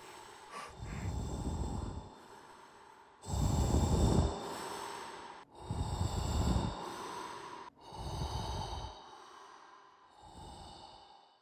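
A person breathing hard in the dark: five long breaths about two seconds apart. The loudest is a few seconds in, and they grow fainter near the end.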